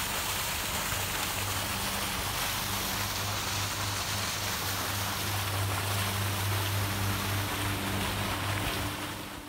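Water rushing and splashing from a fire hydrant opened fully for flushing, a steady loud hiss, with a steady low hum underneath. It fades out near the end.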